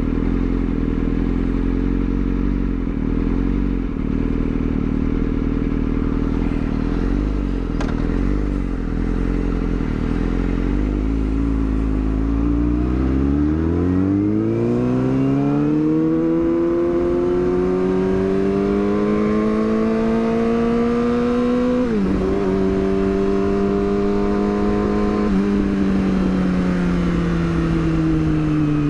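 Yamaha R6 sport bike's inline-four engine running steadily at low revs, then accelerating with a rising pitch. It upshifts with a sudden pitch drop about 22 seconds in and again a few seconds later, then eases off with falling revs near the end.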